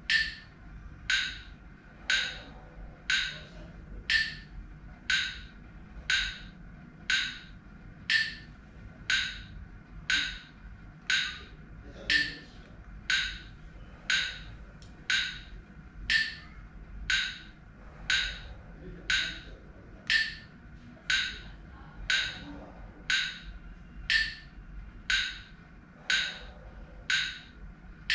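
Metronome app on a phone giving a steady run of sharp, evenly spaced wood-block clicks, pacing breathing.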